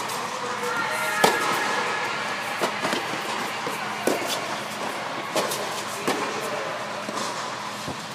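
Tennis ball struck by rackets and bouncing on a hard court inside an echoing dome: a string of sharp pops every second or two, the loudest about a second in.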